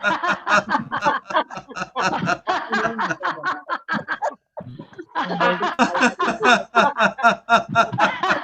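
Deliberate laughter as a laughter exercise: sustained, rapid ha-ha pulses that break off briefly about four and a half seconds in, then start again.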